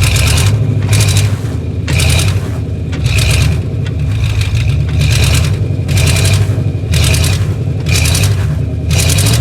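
A stuck vehicle's engine running under load while a tyre spins in snow, with a hissing scrape about once a second over the steady engine drone.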